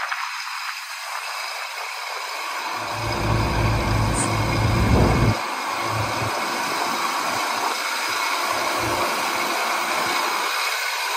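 Heavy diesel engines of a Caterpillar D9L bulldozer and a Caterpillar 631D wheel tractor-scraper running at work, the scraper's engine under load and smoking as it closes on the dozer for a push. A deep rumble swells about three seconds in and drops away suddenly just after five seconds.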